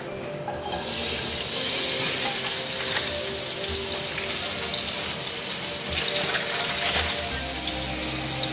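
Sliced onions sizzling in about a tablespoon of hot oil in a nonstick skillet, the sizzle starting suddenly about half a second in as they go into the pan and then holding steady.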